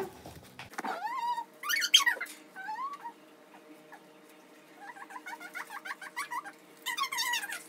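Bird-like whistled calls: a rising whistle about a second in, then sweeping high notes, a short pause, a rapid run of short chirps from about five seconds, and a warbling call near the end.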